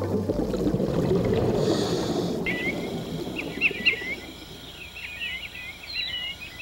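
A low rushing wash fades away over the first few seconds. From about two and a half seconds in, wild birds call in a quick series of short chirps and whistles that carries on to the end.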